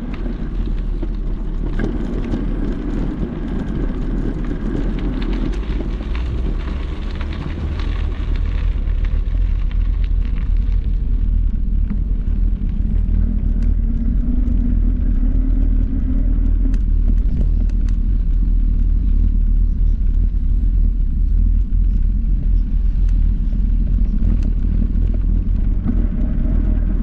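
Outdoor street noise dominated by a steady low rumble, growing somewhat louder about ten seconds in.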